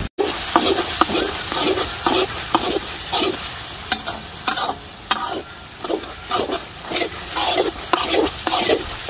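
A spoon stirring and scraping chicken pieces through a thick, sizzling masala in a pan, with repeated strokes about two a second. The strokes thin out in the middle and pick up again near the end. Only a little water is in the pan, to keep the masala from sticking.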